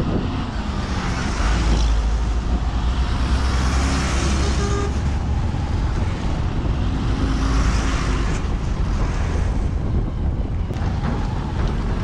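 Road noise from a moving vehicle on a rough, dusty road, with a strong low rumble, as heavy trucks pass the other way. The rushing noise swells twice as trucks go by.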